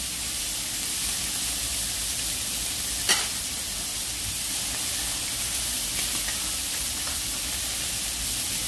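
Beef sizzling in a hot frying pan, a steady hiss, with one sharp click about three seconds in.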